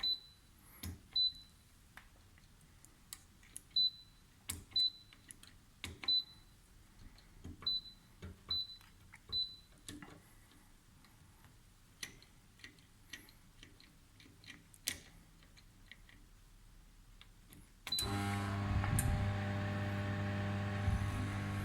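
Microwave oven control panel beeping as its keypad is pressed: about eight short high beeps among light button clicks. About 18 seconds in, the oven starts and runs with a steady hum.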